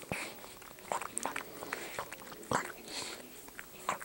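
Wet mouth sounds from a Yorkshire Terrier and her newborn puppy: irregular smacking and licking clicks, the loudest about two and a half seconds in.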